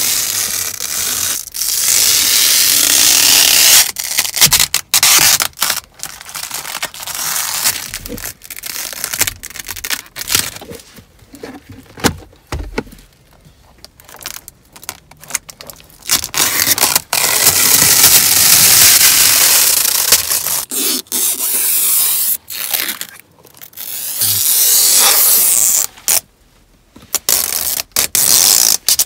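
Protective tape and plastic covers being peeled off a new car's interior trim: long tearing rips lasting several seconds, broken by short scraping rasps and brief pauses.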